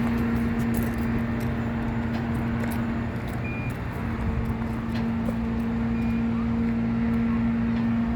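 Work truck's engine running with the power take-off engaged for the crane: a steady hum that breaks off for about a second around three seconds in. Two brief high beeps sound over it.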